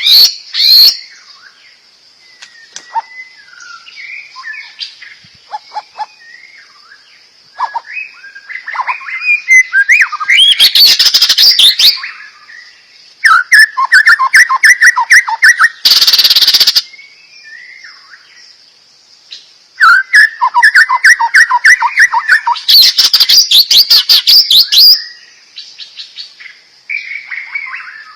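A songbird singing varied whistled phrases broken by loud bursts of fast, chattering repeated notes, over a steady high-pitched hum.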